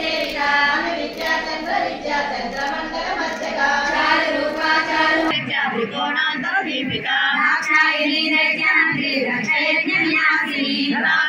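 High voices singing a devotional hymn. About five seconds in, the sound changes abruptly and a low hum underneath drops out, as at an edit.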